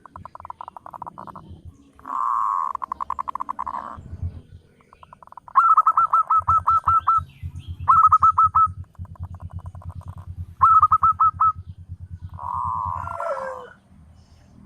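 Zebra dove (perkutut) cooing: phrases of quick staccato notes repeated again and again with short pauses between them.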